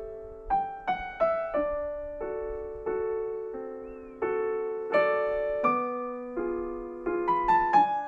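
Background piano music: single notes and chords struck one after another at an unhurried pace, each left to ring and fade.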